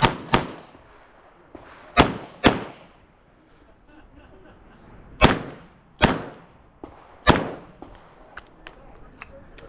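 Revolver gunshots: seven sharp cracks, each with a short decaying tail. Two quick pairs come at the start and about two seconds in, then three single shots about a second apart. Fainter sharp clicks follow near the end.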